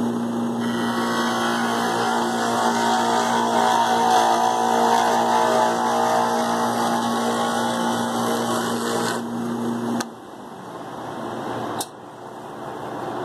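Wood lathe motor humming steadily while a hand-held turning tool cuts a small wooden spindle, giving a continuous scraping cutting noise from about half a second in until about nine seconds. The motor hum then stops abruptly about ten seconds in as the lathe is switched off, and a single click follows near the end.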